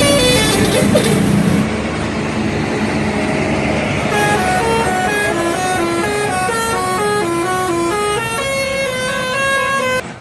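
Bus telolet horn, a multi-trumpet musical air horn, playing a quick melody of short stepped notes, several pitches sounding together, about three notes a second. It sits over a louder rush of noise in the first couple of seconds and cuts off abruptly near the end.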